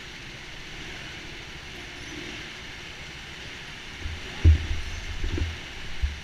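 Steady background din of an indoor go-kart hall, a hiss-like noise with no clear engine note. A few dull low knocks come about four to five and a half seconds in and once more near the end, as the head-mounted camera is jostled.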